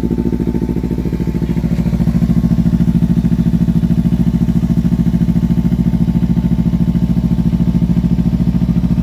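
2013 Kawasaki Ninja 300's parallel-twin engine idling steadily through an aftermarket exhaust just after a cold start, with an even pulsing beat that gets a little louder about two seconds in.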